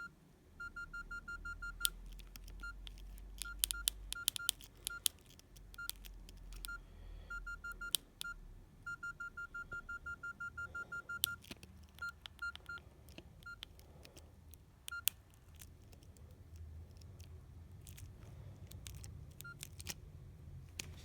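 Nokia 6120 classic mobile phone keypad beeping as its keys are pressed. The short beeps are all on one pitch, some single and some in fast runs as a key is tapped or held to scroll, mixed with the sharp clicks of the buttons.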